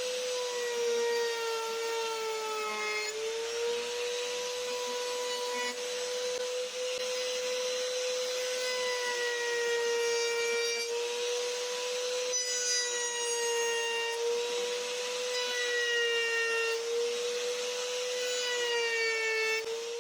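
Electric power tool running steadily with a wavering whine while it cuts or shapes wood, with a scraping hiss over it.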